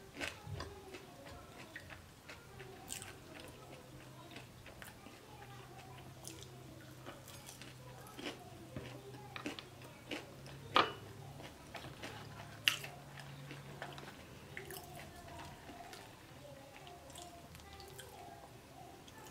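A person chewing food close to the microphone, with wet mouth clicks scattered throughout and two sharper, louder clicks about 11 and 13 seconds in.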